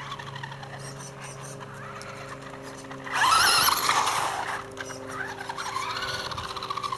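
A high-speed electric RC race car's motor whining at full throttle. The whine swells suddenly about three seconds in and wavers in pitch for about a second and a half, then returns more softly near the end.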